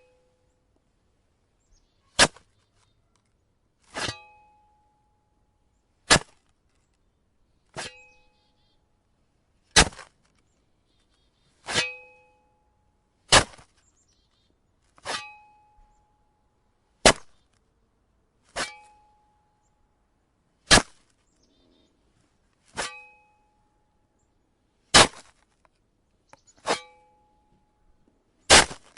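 Metal shovel blade striking into icy snow in a series of sharp chops, about one every two seconds, fifteen in all. Several strikes leave a brief metallic ring from the blade.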